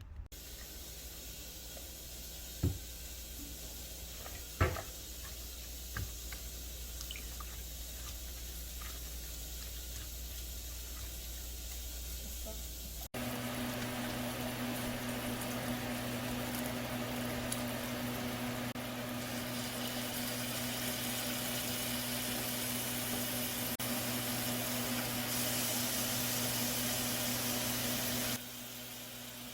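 Kitchen sounds: a few light clicks and knocks over a low hum. Then a steady rushing noise with a low hum under it comes in suddenly, runs for about fifteen seconds, and cuts off near the end.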